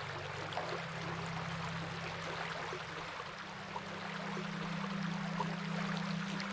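Stream water running steadily, a dense even rush with small splashes. Underneath it is a low steady hum that steps up in pitch a little about three to four seconds in.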